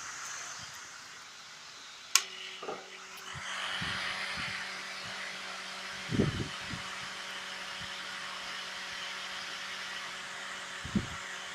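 Old heater blower fan from a Renault Mégane III, the worn unit blamed for a buzz and crackle behind the dashboard, switched on with a sharp click about two seconds in and then running with a steady hum and rush of air. A few dull knocks come later, around the middle and near the end.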